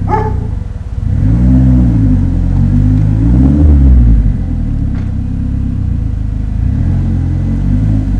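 Rewaco GTR turbo trike engine running. Its speed rises and falls twice about a second in and again around three seconds in, the second rev the louder, then it settles back to a steady idle.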